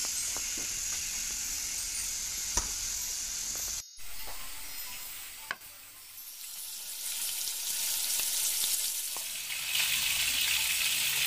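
Butter sizzling as it melts in a steel wok, the hiss building over several seconds and growing louder near the end as chopped garlic goes into the foaming butter to sauté. Before that there is a steady hiss with a single click.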